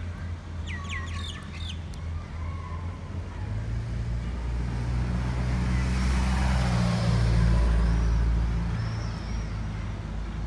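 A motor vehicle's engine drone passing by: a low hum that grows louder to a peak about seven to eight seconds in, then eases off. A few bird chirps sound over it.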